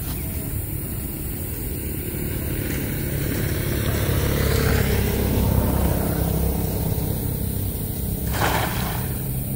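A motor vehicle's engine runs nearby as a low hum, growing louder through the middle and then easing off. About eight and a half seconds in, a short splash as a thrown cast net lands on the water.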